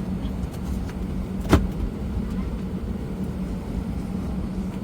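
Steady cabin noise aboard an Airbus A320, a low rumble with a constant hum, broken by a single sharp click about a second and a half in.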